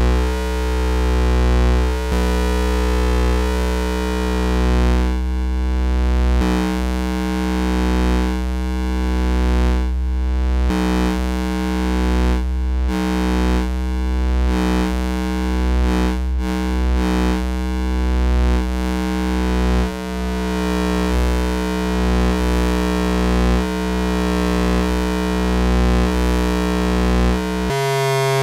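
Schlappi Engineering Angle Grinder, an analog quadrature VCO and waveshaper eurorack module, sounding a steady low synthesizer drone with many overtones, swelling and easing in loudness every second or two. Near the end the tone changes abruptly.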